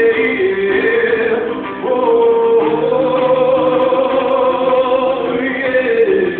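Live band music: a slow melody of long held notes that step and glide between pitches, with singing, over a full backing.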